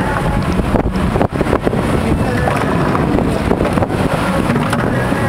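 Wind buffeting the microphone over the steady low rumble of a boat on open water.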